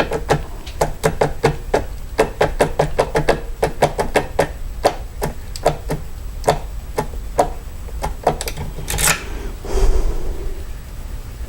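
Metal depth key being wiggled in a Schlage pin-tumbler lock cylinder to raise impression marks: sharp metallic clicks of the key against the plug and pins, about five a second at first, then slower and sparser. There is a longer scrape about nine seconds in.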